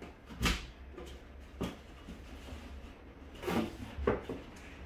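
Thick cardboard kit pieces scraping and knocking as lock pieces are slid into slots in the cardboard panels: four short scrapes, the loudest about half a second in.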